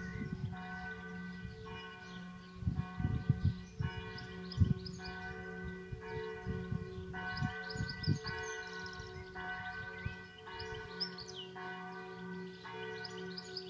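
Church bell ringing steadily, struck about once a second, each stroke's ring overlapping a steady low hum that carries on between strokes. Birds chirp now and then, and a few low thumps come between about 3 and 5 seconds in.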